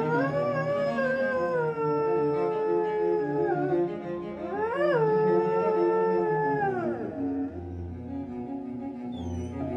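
A curly-coated dog howling along to slow bowed-string music: two long howls, the first held and slowly falling before breaking off about three and a half seconds in, the second sweeping up sharply about five seconds in and sliding down to stop around seven seconds. The music plays on after.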